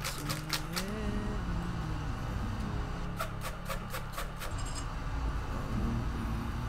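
Kitchen knife chopping vegetables on a solid-wood cutting board, over background music. There are a few strokes at the start, then a quick run of about seven more a little past halfway.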